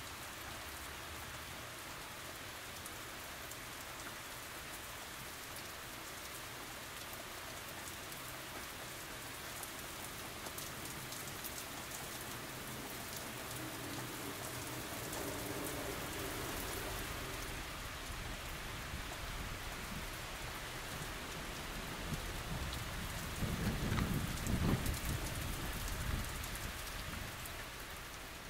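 Steady rain falling, with the fine patter of individual drops, and a louder low rumble of wind near the end.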